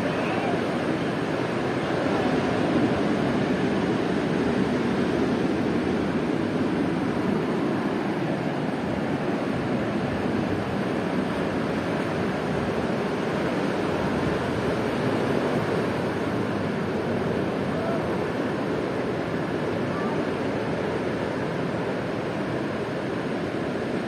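Steady rush of ocean surf washing on the shore.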